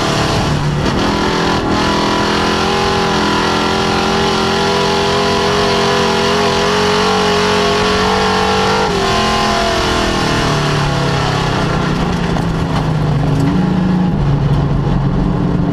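Dirt-track race car's V8 engine heard from inside the cockpit, held at steady high revs under power. About nine seconds in the driver lifts and the engine pitch falls, settling into a lower, slower run.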